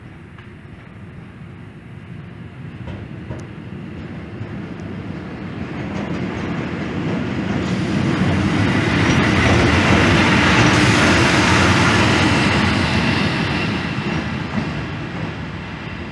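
Czech Railways electric locomotive of the Škoda 'Eso' family approaching and passing close by, its wheels clattering over rail joints and points. The sound swells to its loudest about ten seconds in and then fades as it goes past.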